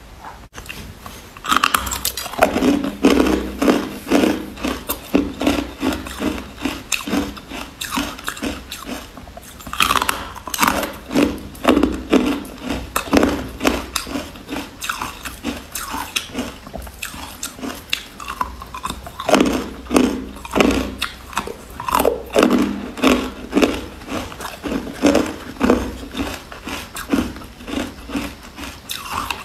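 Carbonated ice being bitten and chewed close to the microphone: crisp crunches, several a second, in bouts that start afresh about every nine seconds.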